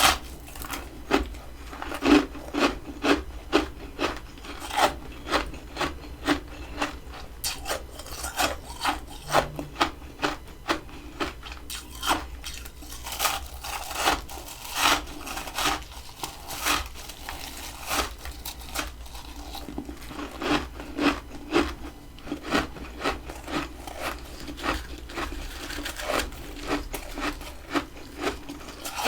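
Freezer frost being scraped and crunched in a long run of short, crisp rasping strokes, about one or two a second.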